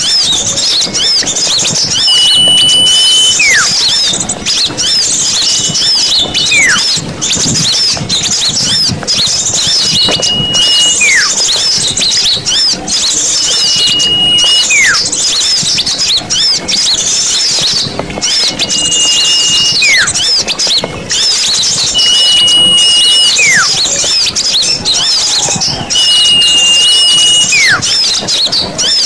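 Small-bird lure recording: a dense, loud chatter of many small songbirds calling together. A clear descending whistle repeats about every four seconds, each followed by a short level note, used to draw small birds in for trapping.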